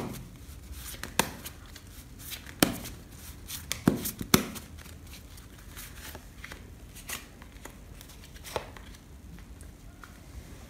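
A Rider-Waite tarot deck being shuffled and cut by hand, with a handful of sharp card clicks and snaps, most in the first half. Softer handling follows as cards are laid out on a cloth.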